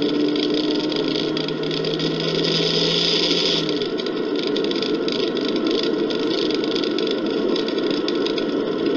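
Steady engine and road noise inside a moving car, as picked up by a dashcam, with a low hum that drops away about four seconds in.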